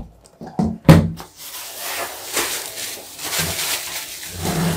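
A few hollow plastic knocks as the fan's motor housing is set down on the table, the loudest about a second in, then plastic wrapping crinkling and rustling as the bagged fan blades are handled.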